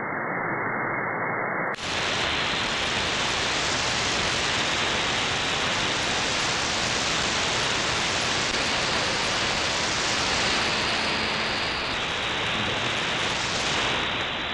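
Shortwave static hiss from a software-defined receiver tuned between stations, with no signal coming through. Just under two seconds in, the receiver switches from upper sideband to AM with a wider filter, and the hiss suddenly becomes brighter and fuller, then stays steady.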